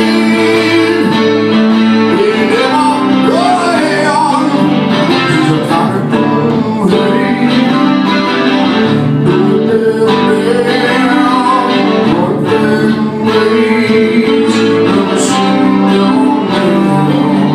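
Live acoustic music: two acoustic guitars played together, with a man singing over them.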